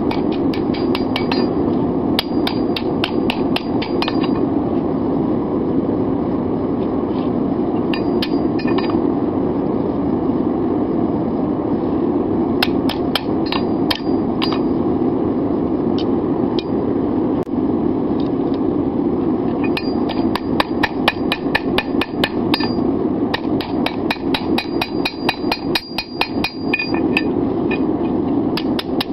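Hand hammer striking a hot steel bar on an anvil in bursts of rapid blows, with the anvil ringing after the strikes and pauses of a few seconds between bursts. A steady rushing noise runs underneath.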